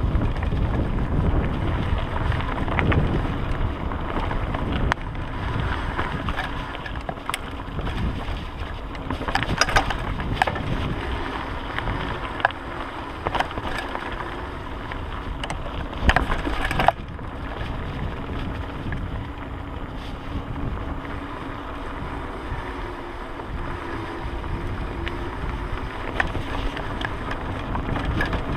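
Mountain bike rolling along a dirt singletrack: steady wind buffeting on the microphone over the rumble of the tyres, with short spells of clattering rattles from the bike about a third of the way in and again just past halfway.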